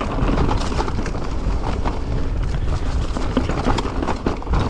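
Mountain bike clattering and rattling as it is ridden down a rough, rocky downhill trail: a run of irregular knocks over a steady low rumble.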